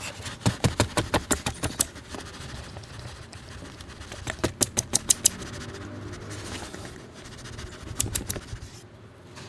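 Opened tin can knocked repeatedly against a foam tray to shake wet cat food out of it: three quick runs of sharp taps, about eight near the start, about six in the middle and a few more near the end.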